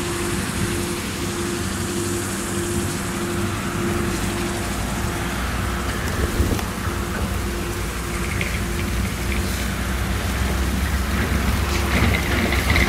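Claas Lexion 760 TT combine harvester running steadily while it harvests maize and unloads shelled kernels through its auger spout into a trailer: a constant engine drone under a dense, rain-like hiss of grain pouring. A deeper rumble builds about four seconds in.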